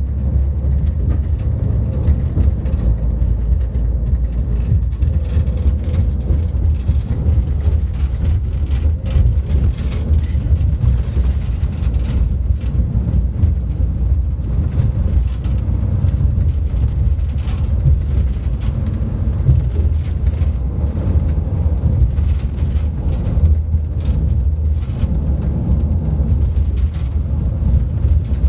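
Steady low rumble of a moving vehicle's engine and tyres, heard from inside the cab while driving.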